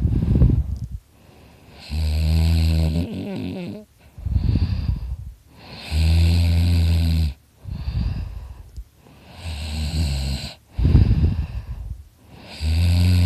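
A sleeping man snoring loudly. Each breath in is a buzzing, rattling snore lasting about a second, and a rougher, noisier breath out follows between them, the cycle repeating roughly every four seconds.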